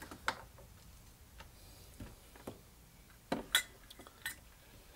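Scattered light metallic clicks and taps, about eight of them at irregular spacing, from small carburetor parts and hand tools being handled and set down during reassembly of a one-barrel carburetor.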